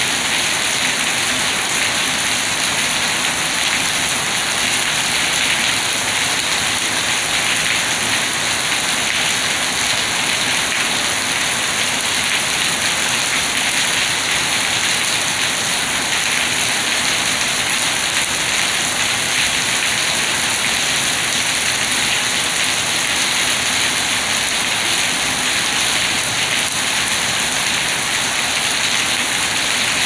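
Steady rain falling on a wet stone-paved yard, the drops splashing on the flagstones in an even, unbroken hiss.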